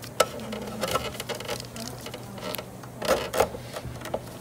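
Small clicks and rubbing from gloved hands handling a braided faucet hose and shears, with a couple of sharper knocks about three seconds in.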